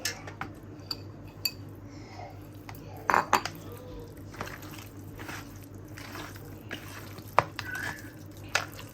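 Kitchen clatter: bowls and utensils clinking and knocking as food is handled, with a cluster of knocks a little after three seconds in and one sharp clink about seven seconds in, over a steady low hum.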